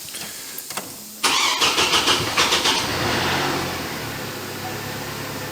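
GMC Canyon engine being started: a light click or two, then the starter cranks for about a second and a half before the engine catches and settles into a steady idle.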